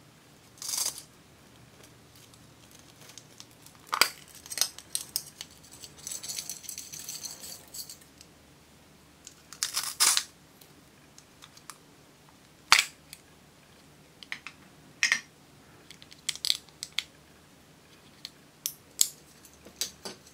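Small clear plastic containers of glitter being handled: scattered sharp plastic clicks and taps, and a rattle of loose glitter sequins inside a plastic star ornament for about two seconds in the middle.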